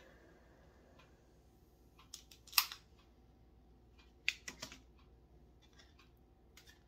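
Light clicks and clacks of a tool and wire being handled on a workbench. They come in two short clusters, about two and about four seconds in; the loudest is a sharp clack just after two and a half seconds.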